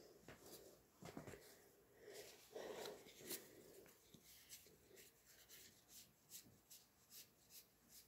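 Faint handling of Pokémon trading cards: soft rustling, then from about four seconds in a steady run of light ticks, about two or three a second, as cards are flipped through one by one in a pile.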